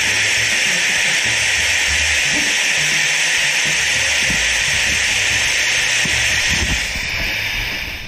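Gaggia Cadorna Prestige super-automatic espresso machine frothing milk into a glass: a loud, steady steam hiss. It tapers off near the end as the milk cycle finishes.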